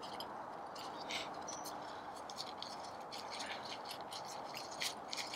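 Camping gear being handled: light rustling with many small irregular clicks and rattles, over a steady low hiss.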